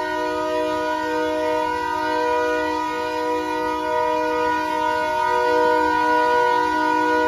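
Diesel locomotive's multi-note air horn blowing for a grade crossing as the locomotive approaches. It is held as a loud chord, with some of its lower notes breaking off and coming back every second or so.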